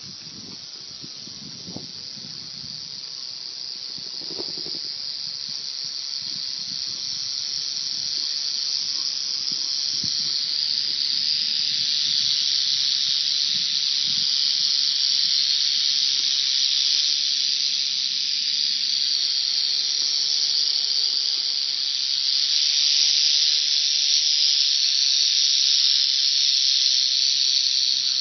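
Rattlesnake shaking its tail rattle in a continuous high-pitched buzz, the defensive warning of a coiled snake, growing louder over the first dozen seconds and then holding steady.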